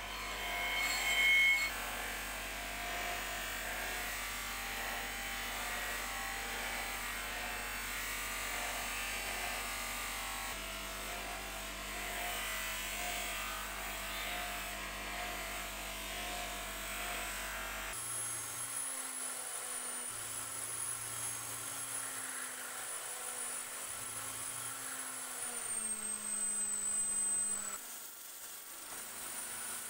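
Bench grinder running steadily with its wheel smoothing a steel part pressed against it. About 18 seconds in it gives way to an electric drill spinning a wooden handle against sandpaper, its motor whine rising and falling in pitch.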